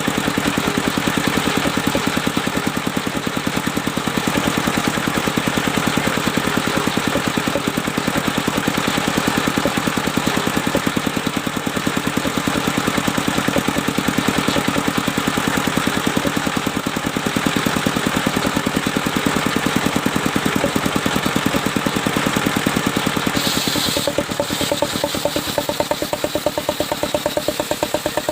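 Engine of a portable circular-saw sawmill running steadily with a fast, even firing beat. Near the end a brief high hiss sounds and the tone of the running shifts a little.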